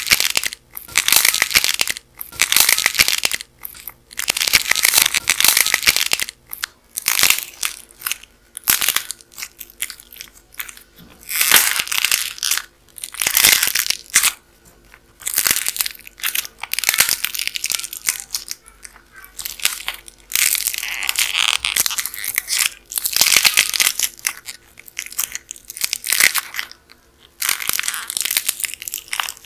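Dried crust of a clay hotdog model cracking and crunching as hands squeeze and tear it apart, in repeated crackly bursts every second or two.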